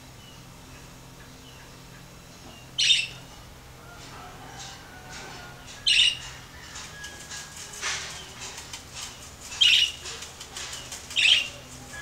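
Budgerigar scratching and rummaging in its seed: a scratchy rustle with rapid clicking, broken by four short loud bursts spaced a couple of seconds apart.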